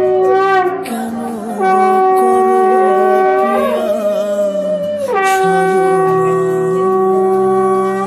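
Conch shells (shankha) blown in long, steady blasts, each wavering and dropping in pitch as it ends: one ends about a second in, and two more follow, the last held nearly to the end. This is the customary auspicious conch call of a Bengali wedding ritual.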